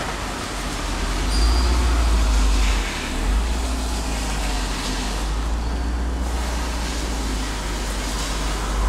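BMW E39 M5's V8 on its stock exhaust, idling and creeping along at low speed with a low, steady rumble that swells briefly about a second and a half in.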